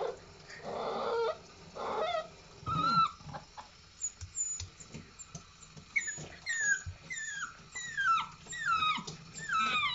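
Puppy whimpering, distressed at being bathed: a run of short, high whines that each fall in pitch, coming about twice a second through the second half.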